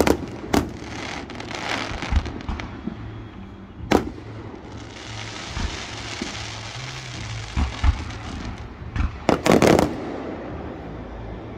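Aerial fireworks display: sharp bangs of shells bursting, a few seconds of dense crackle from about five to eight seconds in, and a loudest cluster of bangs near the end.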